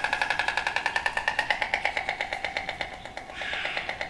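White stork bill-clattering: a rapid wooden rattle of about ten strokes a second, with a short dip about three seconds in.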